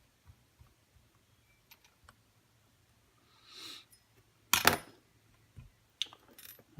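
Small parts being handled on a workbench: light ticks and a short rub, then a sharp metallic clatter about four and a half seconds in as a small metal part is set down or dropped, followed by a few clicks.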